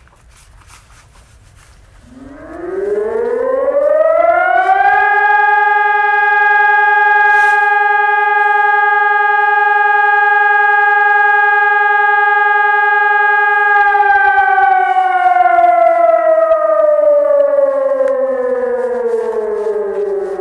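Ergatec EWS 600 siren sounding one blast of the fire alarm signal. It winds up over about three seconds to a steady wail, holds for about nine seconds, then winds slowly down and is still falling at the end.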